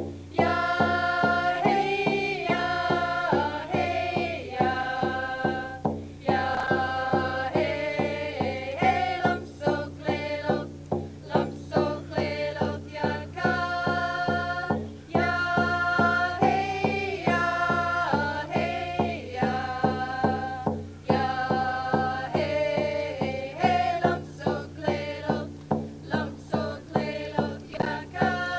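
First Nations song: several voices singing together in long chanted phrases over a steady beat, about three strokes a second, on a large hand drum.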